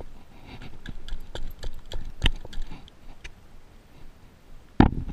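Irregular clicks and knocks of a spinning reel and rod being handled right up against the camera, with one loud sharp knock near the end.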